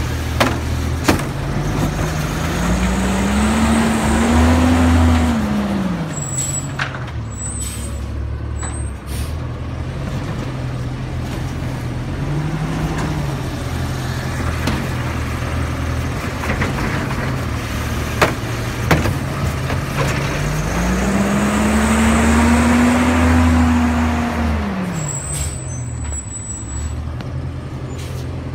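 Autocar refuse truck with a New Way Sidewinder automated side-loader arm working: the diesel engine idles and twice revs up for several seconds, rising and then falling back, with short hisses of released air from its air brakes after each rev.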